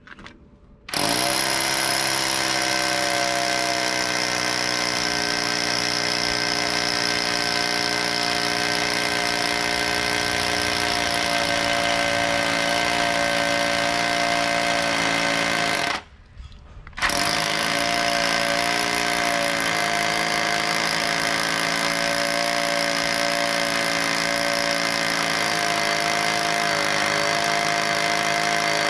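Electric rotary hammer drilling into a concrete slab, running steadily at full speed. It stops for about a second midway, then starts again.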